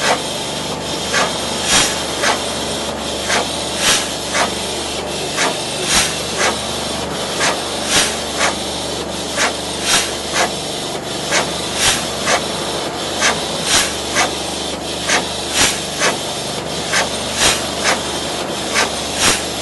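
Slow-running vintage engine: a steady hiss with sharp, evenly spaced clicks about twice a second.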